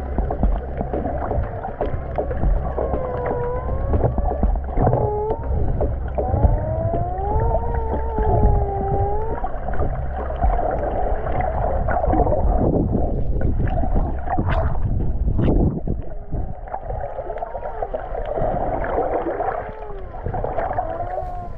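Underwater sound picked up by a GoPro while snorkeling: a muffled low rumble with a whining tone that slides up and down in pitch, from a boat motor heard through the water. A couple of sharp knocks come about two-thirds of the way through.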